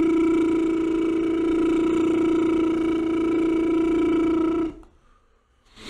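A man's voice holding one steady note with closed lips as a vocal warm-up exercise, stopping about three-quarters of the way through, followed by a short breath near the end.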